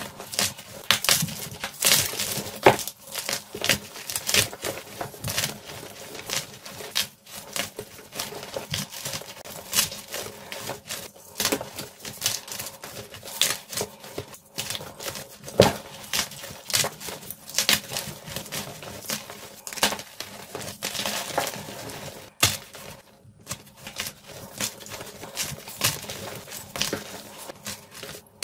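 Hands crushing and squeezing blocks of white gym chalk into powder: a dense run of irregular dry crunches and crackles, with one brief pause.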